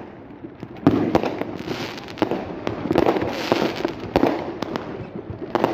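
Fireworks going off: a string of sharp bangs and pops, the first about a second in, with crackling hiss between them.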